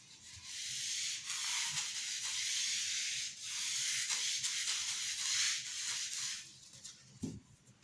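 Handheld whiteboard eraser rubbed across a whiteboard, wiping off marker writing: a steady rubbing noise that stops about six and a half seconds in, followed by a soft knock near the end.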